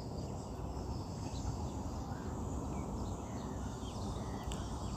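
Steady low outdoor background noise with a few faint short chirps scattered through it, and one faint click near the end.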